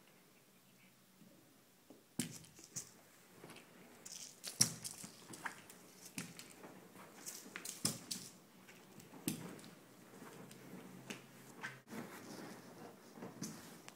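Oriental shorthair cat batting a toy on a fabric sofa back: irregular soft taps, clicks and rustles that start about two seconds in.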